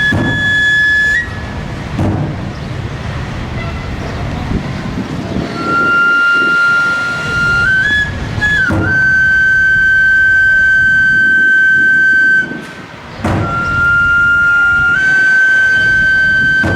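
Chirimía, a wooden shawm, playing long held high notes that step upward in pitch, breaking off about a second in and briefly again near the end. A drum is struck a few times, widely spaced.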